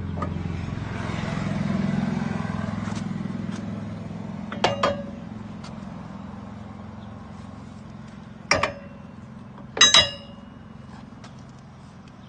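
A vehicle engine running steadily, swelling briefly about two seconds in. Sharp metallic clinks ring out about four and a half seconds in, and again near eight and a half and ten seconds.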